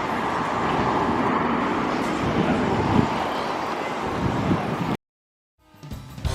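City street traffic noise, steady and dense, that cuts off suddenly about five seconds in. Music with brass fades in near the end.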